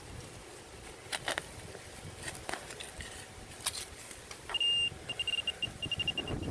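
A few sharp scrapes of digging in dirt, then about four and a half seconds in a metal detecting pinpointer probe sounds. It gives a short steady high beep, then goes into rapid repeated beeps at the same pitch, about five or six a second, as it finds the target in the hole.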